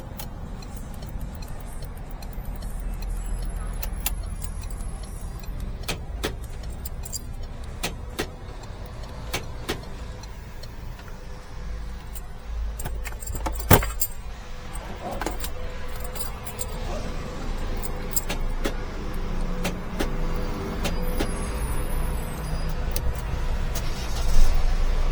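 Car keys being handled: jangling and scattered short clicks over a steady low rumble, with one loud sharp click about fourteen seconds in.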